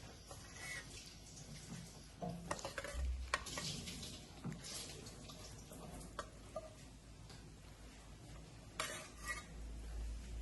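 A metal spoon scraping and clinking against a pot and dishes as the cooked vegetable stew is dished out, in scattered short strokes with a busier patch of scrapes and clinks a few seconds in and another near the end.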